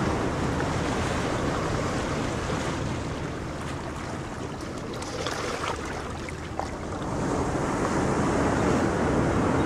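Steady rush of wind buffeting the microphone over open water, with a scatter of small wet splashes in the middle as a net of live fish is tipped over the side into the water.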